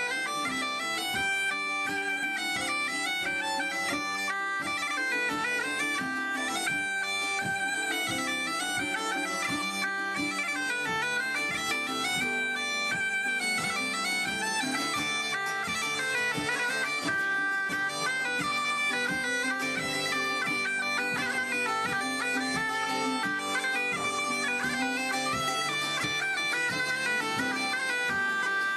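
Two bagpipes playing a tune together without a break, the melody moving over steady, unbroken drones.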